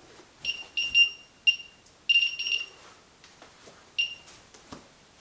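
Handheld RF signal detector beeping in short, high-pitched chirps, irregularly spaced and in clusters of one to three, most of them in the first half and one more about four seconds in: the sign that it is picking up a radio signal. A few faint knocks come between the beeps.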